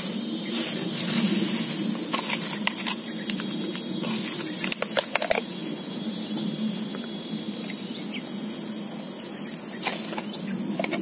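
A steady, high-pitched insect drone, with leaves rustling and twigs cracking as someone pushes through dense shrubs; a short cluster of cracks comes about five seconds in.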